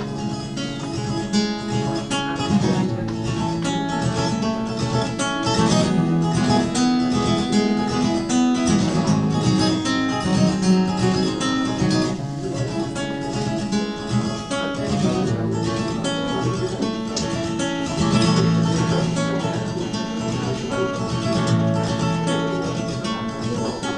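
Solo acoustic guitar played live: a continuous instrumental passage of quickly picked and strummed notes, with no voice over it.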